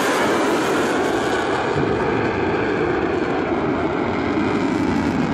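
Jet engine noise from a Thunderbirds F-16 fighter jet just after a low pass, loud and steady as it pulls away. Its high hiss thins out about a second and a half in, and the pitch sinks slightly as it recedes.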